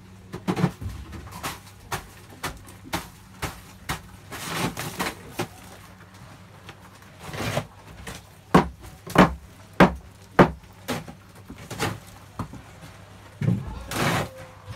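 Irregular knocks and scrapes of work inside a fishing boat's ice-packed fish hold, with a run of four hard knocks about half a second apart in the middle. A faint steady low hum runs underneath.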